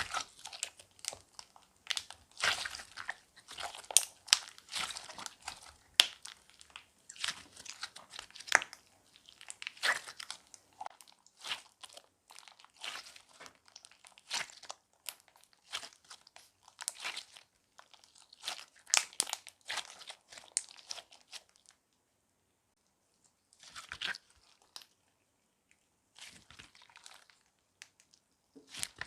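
Clay-mixed slime squished and pressed by hand, giving dense crackling and popping clicks. Near the end it falls quiet for about two seconds, then comes back in a few short bursts.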